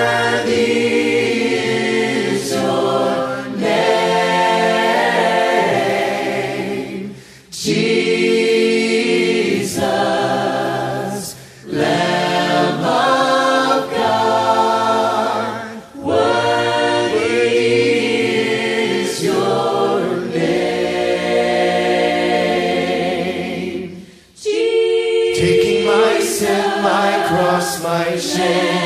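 Background vocal music: a group of voices singing together in long phrases separated by brief breaks.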